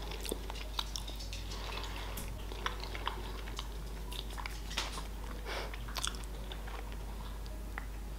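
A person chewing a mouthful of salmon, close to the microphone: scattered soft, wet mouth clicks and smacks.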